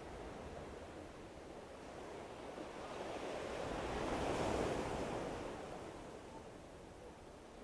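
Sea waves washing onto the shore. One wave swells to a peak about halfway through, then recedes.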